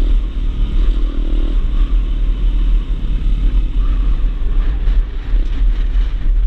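Honda Grom's small 125cc single-cylinder engine running at low road speed as the bike rolls along, with a steady low rumble of wind on the microphone.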